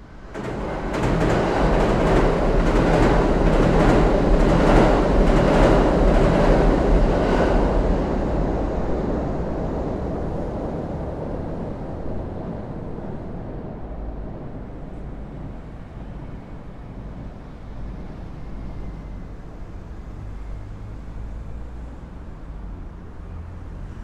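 A train crossing a steel truss railway bridge close by: it comes in suddenly and loudly, with a rhythmic clatter of about two knocks a second from the wheels over the track. After about eight seconds the sound fades slowly to a low rumble.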